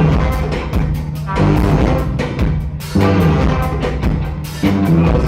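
Live reggae band playing an instrumental passage: bass, drums and chords over a steady beat, with no singing yet.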